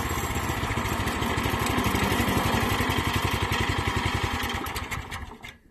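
Subaru 9 hp single-cylinder engine on a Timbery M100 portable band sawmill idling with an even firing beat, then slowing and stopping about five seconds in.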